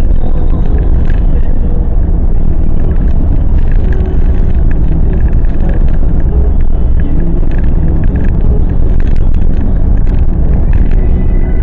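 A car cruising at a steady speed: a continuous low rumble of road and engine noise with no change in pace.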